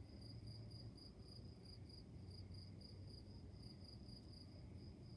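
Crickets chirping faintly, a high pulsing trill at about five or six pulses a second, over a steady low rumble.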